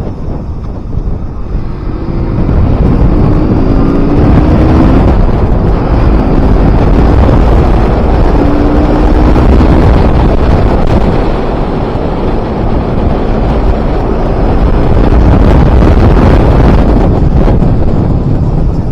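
KTM RC 200's single-cylinder engine running on the move, getting louder about two seconds in and its note climbing a few times as it pulls, with heavy wind noise buffeting the microphone.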